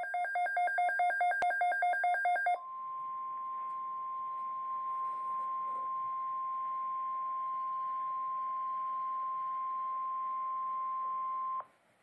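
A weather radio's rapid pulsing electronic alert beep for about two and a half seconds, with a click partway through. Then comes the NOAA Weather Radio 1050 Hz warning alarm tone, a steady single tone over radio hiss, for about nine seconds until it cuts off sharply near the end. The tone is the alert that leads into a tornado watch broadcast.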